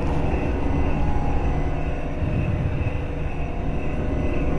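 Steady low rumble with faint steady hums above it.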